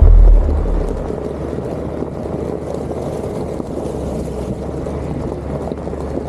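Side-by-side utility vehicle's engine running with a steady low drone as it drives along. A loud low thump at the very start dies away within the first second.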